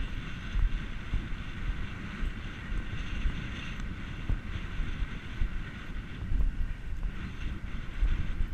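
Wind buffeting the microphone of a camera worn by a rider on a cantering horse, with the dull thuds of the horse's hoofbeats underneath.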